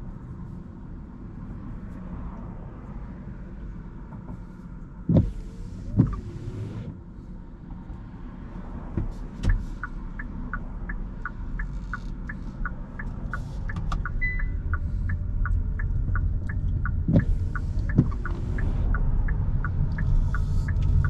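Car cabin on a wet road: engine and tyre rumble that grows louder toward the end, two pairs of windscreen-wiper sweeps, each starting with a thump, and a steady ticking at about two a second from about halfway through.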